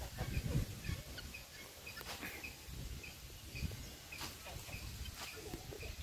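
Faint mixed bird calls: short high chirps repeating about every second, with a few sharper calls about two, four and five seconds in, over a low rumble.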